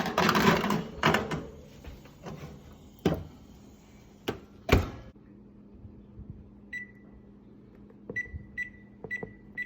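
Loud clattering in the first second and two sharp knocks, then an oven's electronic timer beeping repeatedly, short high beeps about twice a second from about two-thirds of the way in.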